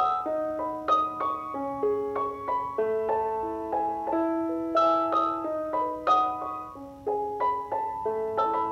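Background piano music: a melody of struck notes over chords, a new note every half second or so.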